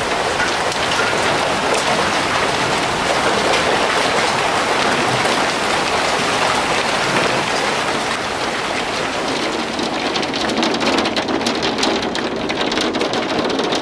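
Hailstorm: hail and heavy rain pelting down as a dense, steady hiss. Sharp ticks of hailstones striking hard surfaces grow thicker near the end.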